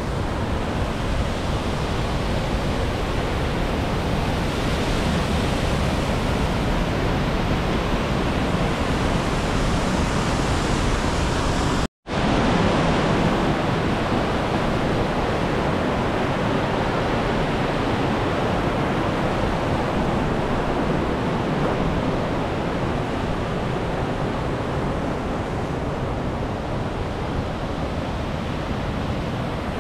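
Mountain creek rushing over rocks and small falls in a narrow rock gorge, a steady loud wash of white water. It cuts out abruptly for a moment about twelve seconds in, then resumes.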